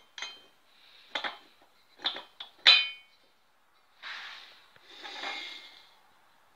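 Aluminium cylinder and crankcase of a two-stroke trimmer engine clinking against each other as they are handled and fitted together: five sharp metallic clinks in the first three seconds, the loudest near the third second. Two longer, softer scraping sounds follow as the engine is shifted on the tiled floor.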